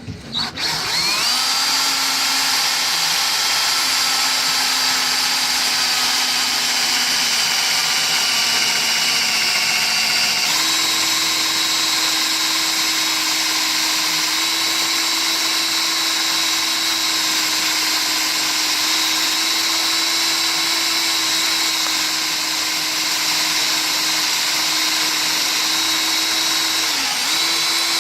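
Electric drill clamped in a lathe tool post as a homemade tool post grinder, its motor running steadily with a whine. The pitch steps up about ten seconds in, as the drill speeds up, and dips briefly near the end.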